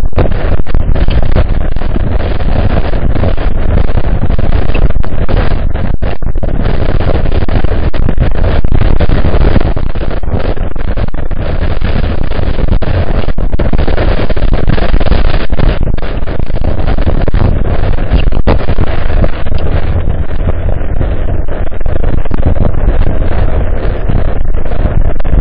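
Wind buffeting the microphone of a camera carried on a moving bike: a loud, steady rush of noise, heaviest in the low end, with no engine note or other distinct sound standing out.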